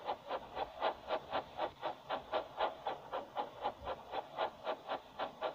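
Steam locomotive chuffing steadily, about four hissing puffs a second, as it runs along pulling its train.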